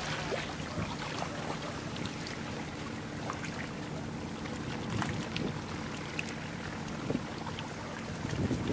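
Low, steady drone of a ship's engine under a background hiss, with occasional small clicks. Near the end, wind starts buffeting the microphone.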